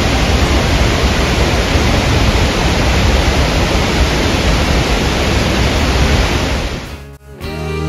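Steady rushing of a waterfall and its blowing spray, close by. About seven seconds in it cuts off and guitar music begins.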